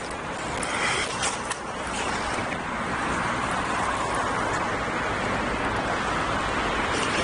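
Steady rushing road-traffic noise, mixed with the roll of inline skate wheels on rough asphalt close by. A few sharp clicks sound in the first second and a half.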